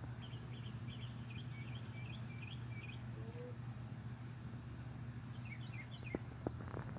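Small birds chirping in quick, repeated high notes over a steady low hum of outdoor background noise, with a few sharp clicks near the end.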